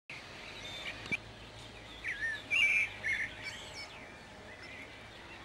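Small songbirds chirping and calling in short, rapid phrases, with one sharp click about a second in.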